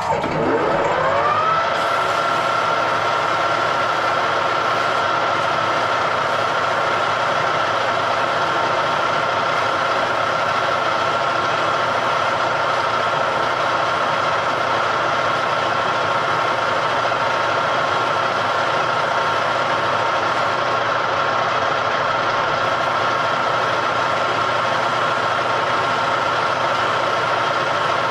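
Workshop machine tool starting up, its motor whine rising in pitch over the first second or two as it comes up to speed. It then runs at a steady speed with a constant whine.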